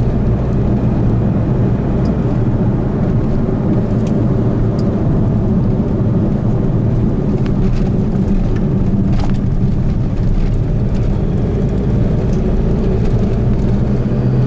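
Steady engine drone and tyre noise of a car driving along a highway, with no change in pace.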